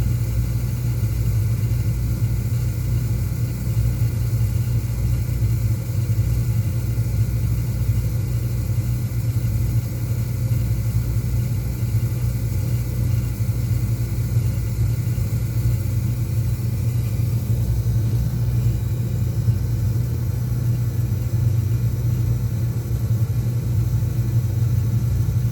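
Beckett oil burner on a Miller furnace firing steadily: an even, low rumble of the burner flame and blower motor, with no break in it.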